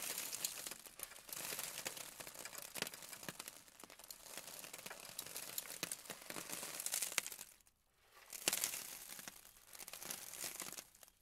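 Faint crackling, crinkling noise with many small clicks, coming in several swells with a short break about two-thirds of the way through.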